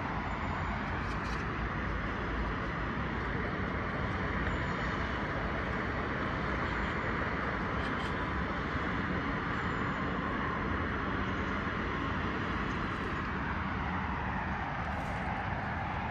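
Steady hum of distant road traffic, an even rumble of city ambience with no distinct events.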